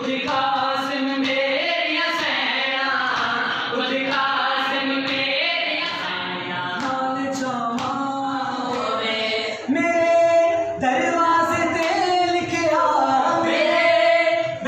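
Young men and boys reciting a nauha, a Shia lament for Muharram, sung together by several voices without instruments, with long held notes. The voices grow louder about ten seconds in.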